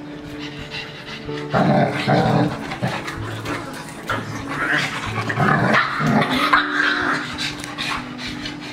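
A German shepherd and a pug growling as they wrestle, in two loud rough spells: one about a second and a half in, and a longer one from about halfway to near the end. Background music runs steadily underneath.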